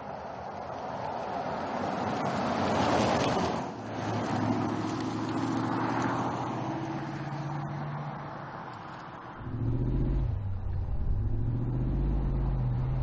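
Audi SQ8 SUV driving at speed: tyre and engine noise swell to a pass about three seconds in, then the engine drones steadily. From about ten seconds in a louder, deeper engine note rises and falls in pitch as the car accelerates.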